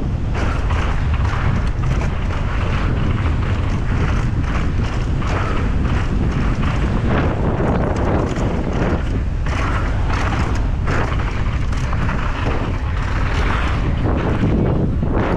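Mountain bike descending a rough downhill trail at speed: steady wind buffeting the microphone over a heavy rumble of tyres on dirt, with frequent knocks and rattles from bumps and roots.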